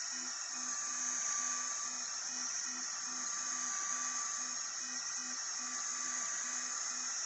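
Sculpfun S30 Pro laser engraver running: its stepper motors give a low buzz that starts and stops about two to three times a second as the head makes short moves, over a steady hiss from the air assist.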